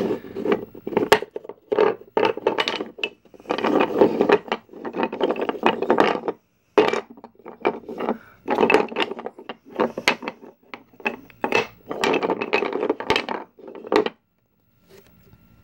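Wooden burr puzzle being taken apart by hand: interlocking wooden pieces sliding and rubbing against each other, with many clicks and knocks as they come free and knock together. The clatter stops about fourteen seconds in.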